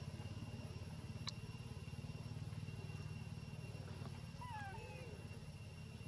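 Infant macaque giving a few short, high squeaks that fall in pitch, about four and a half seconds in, over a steady low hum.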